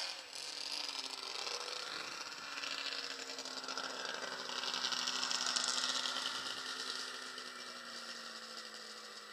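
Snowmobile engine running at a steady pitch that drifts slowly downward, loudest about five to six seconds in.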